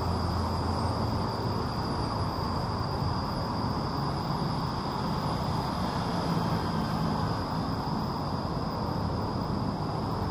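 Insects in the trees keeping up one steady, high, unbroken drone, over a low, even background rumble.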